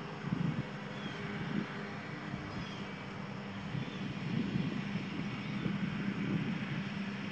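A steady low hum with a distant engine-like drone, under irregular gusts of wind buffeting the microphone.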